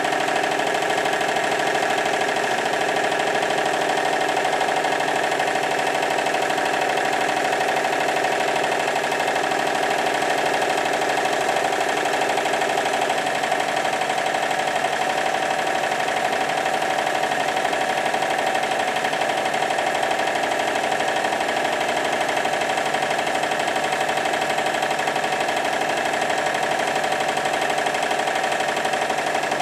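A Stuart triple expansion model marine steam engine running steadily on live steam, with continuous mechanical clatter and steam exhaust.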